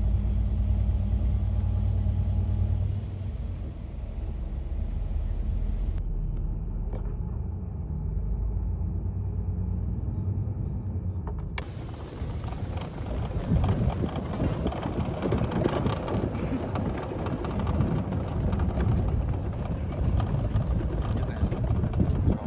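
A vehicle engine running in a low, steady drone, heard from on board. After two abrupt cuts it turns into a rougher, noisier rumble about twelve seconds in.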